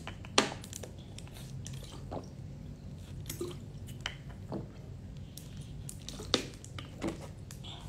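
A person drinking from a plastic water bottle: scattered short clicks of swallowing and the bottle handled between sips, over a steady low hum.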